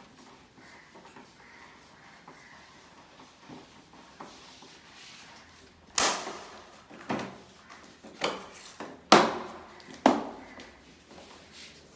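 A quiet stretch, then five sharp knocks about a second apart, each dying away briefly.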